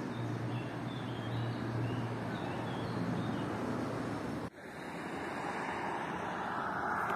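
Steady outdoor background noise of distant road traffic and wind on the microphone, broken by an edit cut about four and a half seconds in. A faint high steady whistle follows the cut for about a second.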